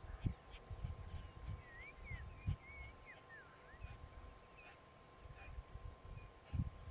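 Birds calling in the grassland with short whistled notes that slide up and down and brief high chirps, over irregular low thumps and rumbles that are the loudest sound, and a faint steady tone.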